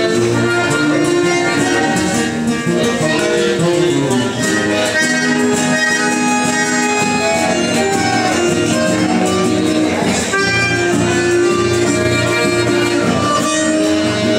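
A live Latin American folk band playing: a cajón struck by hand under guitar, with a melody instrument holding sustained notes.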